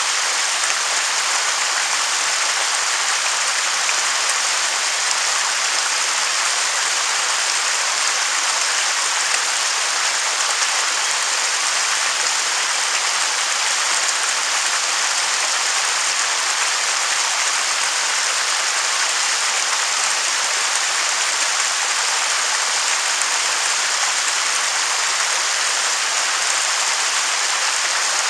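Waterfall: a steady, unchanging rush of falling water, mostly a bright hiss with little low rumble.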